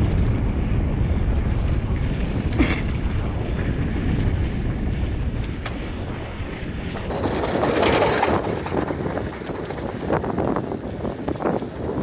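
Wind buffeting the microphone of a camera carried on a mountain bike in motion, over the steady rumble of tyres on the trail, with scattered short clicks and rattles from the bike.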